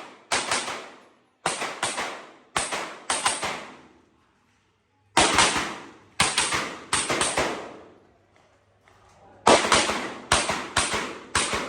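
Handgun shots fired in rapid succession, mostly in quick pairs, about twenty in all, each with a short ringing tail. The string breaks twice for about a second before firing resumes.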